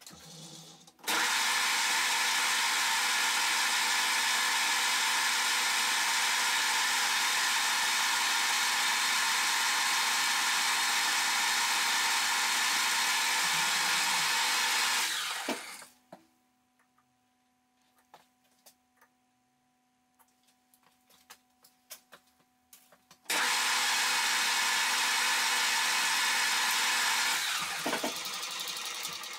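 Harrison M300 geared-head lathe running with the chuck spinning: it starts abruptly and runs steadily for about fourteen seconds before winding down. After a quiet spell with small clicks, it starts again and winds down near the end.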